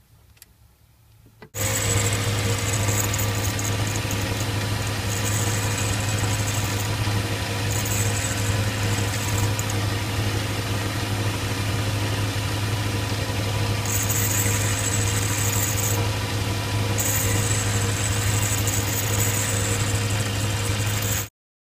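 Valve refacing machine running, its electric motor humming steadily while the grinding wheel cuts the face of a diesel engine valve, with a high grinding hiss that comes and goes. It starts abruptly about a second and a half in and cuts off just before the end.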